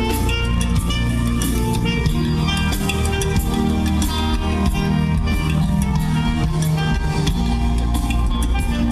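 Music with plucked guitar and percussion keeping a steady beat.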